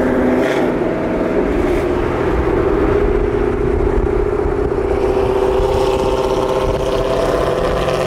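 Ford Mustang V8 exhaust droning at a steady highway cruise, the engine note holding fairly even, over tyre and wind noise.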